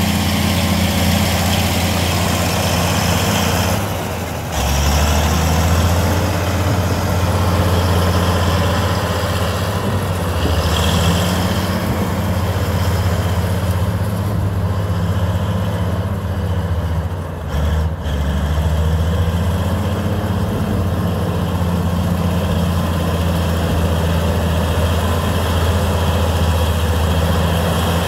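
Heavy diesel engine of an earthmoving machine clearing snow, running steadily. Its note dips briefly about four seconds in and again past the middle.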